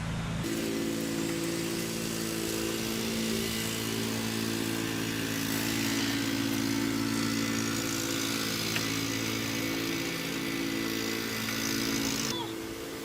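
A motor running steadily: an even, droning hum with a hiss over it, which drops away near the end.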